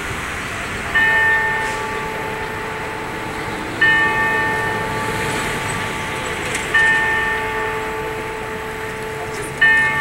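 Wako building clock-tower bell striking the hour: the same bell struck four times about three seconds apart, each stroke ringing on and fading, over steady city traffic noise.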